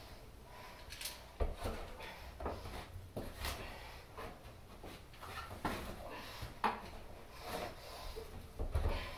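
Scattered knocks, scrapes and rubs of a climber's hands and shoes jamming and shifting along wooden ceiling beams, with two sharper knocks, one about a second and a half in and one about two-thirds through.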